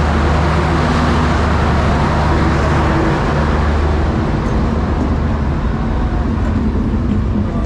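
Loud passing diesel train: a steady low engine drone with the rumble and noise of the train running by, the drone easing off about four seconds in.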